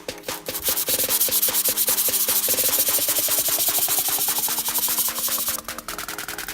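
Sanding during the restoration of an old pocket knife: a steady abrasive hiss that starts about half a second in and stops about five and a half seconds in. Background electronic music with a steady beat plays under it.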